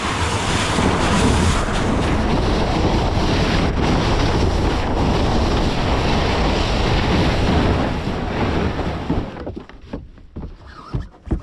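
Loud wind buffeting the microphone, a dense rushing rumble that dies away about nine seconds in, followed by a few short knocks.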